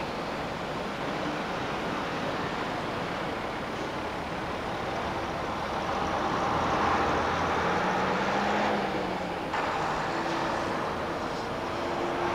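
Steady engine and road traffic noise, with a low engine hum that swells and falls about eight seconds in. The noise changes abruptly about nine and a half seconds in.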